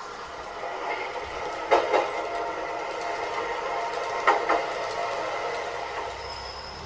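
A train running along the track with a steady hum, and two pairs of sharp clicks of its wheels crossing rail joints, just under two seconds in and again about four seconds in.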